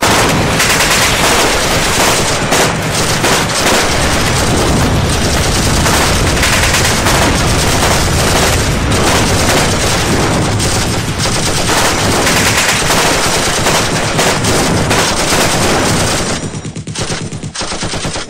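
Loud, continuous automatic gunfire: machine guns firing in long overlapping bursts. It thins to separate shots about two seconds before the end.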